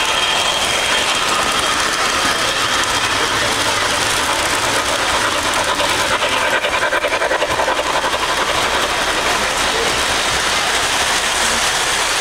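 Model trains running past close by: a steady rumble of wheels and motors on the layout's track, with rapid clicking over the rail joints around the middle.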